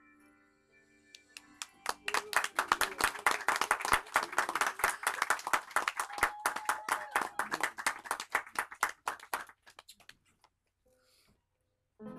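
Applause: many people clapping, starting about two seconds in and dying away near the end, after a few held musical notes fade out.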